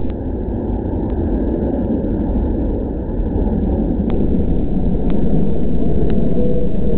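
Airbus A380's four jet engines rumbling as the airliner flies low and slow overhead, growing louder about halfway through.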